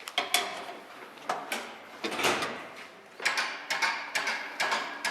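A series of sharp mechanical clicks and knocks, with a longer rushing scrape just after two seconds, then clicks coming faster and more evenly from about three seconds in.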